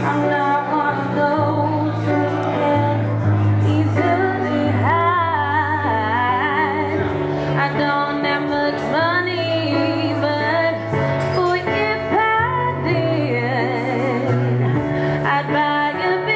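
A woman singing a slow melody with vibrato into a microphone, over an accompaniment of long-held low notes.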